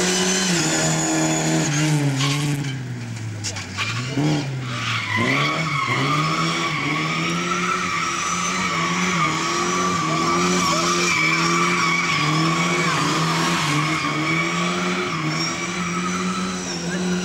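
A competition car's engine is revved hard around a slalom course. Its note dips and climbs again about four seconds in. From about five seconds in, a long high-pitched tyre squeal comes from tyres sliding through the turns.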